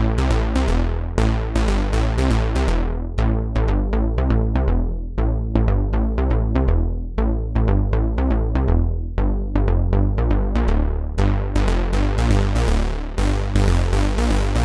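Software synthesizer playing a quick sequence of short plucked notes over a heavy bass line with a drum-machine beat, processed through a Roland Juno-style stereo chorus effect.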